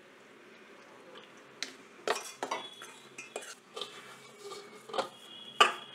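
Stainless-steel pot, bowl and spoon clinking and knocking as hot water is poured into rice flour and the dough is mixed by hand. The clinks come in an irregular run after a quiet first second or so, with the loudest knock near the end.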